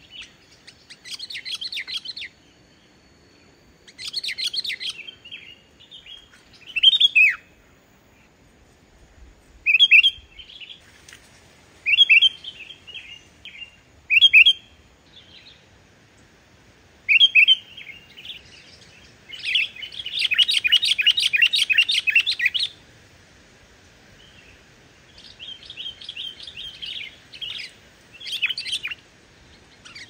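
Sooty-headed bulbul singing: short, bubbling whistled phrases repeated every two or three seconds, with one longer run of rapid chattering notes about two-thirds of the way through.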